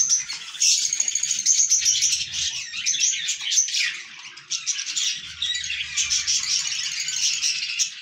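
A flock of small pet parrots, budgerigars and lovebirds, chattering: many overlapping high chirps and warbles.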